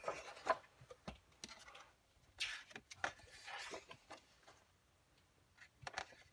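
Thick coloring-book pages being turned by hand: a few soft papery swishes and rustles, with a couple of light taps near the end.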